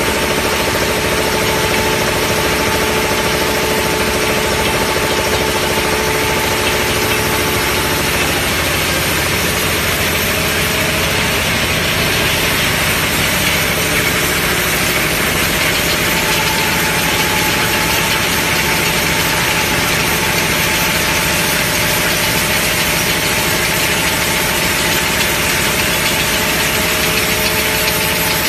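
A bottle-cap compression moulding machine and its cap line running: a loud, steady mechanical clatter and hum. A few steady tones in it drop out about eight seconds in and return later.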